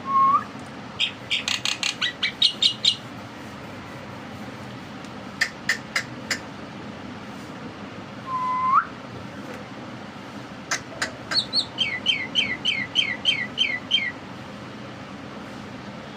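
Bird calls: a short whistle sliding upward, heard twice, and two quick runs of chirps, the second made of about ten falling notes near the end. Four sharp clicks come in the middle.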